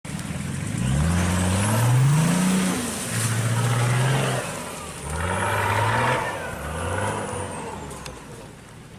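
The Lego Technic buggy's two Power Functions L motors and geartrain whirring in about four runs. Each rises in pitch as the buggy speeds up and then holds steady, over a hiss of the tyres on the floor.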